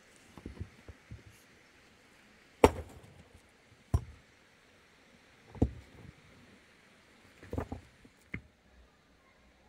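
Long-handled digging tool striking stony, rocky ground: sharp hits every second or two, irregularly spaced, with softer knocks of stone between them.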